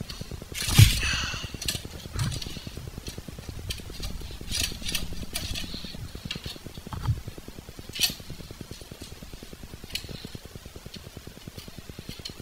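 Scattered light clicks and taps of a screwdriver and metal parts being handled at a dirt bike's brake pedal pivot and brake rod, the sharpest knock about a second in, over a low steady hum.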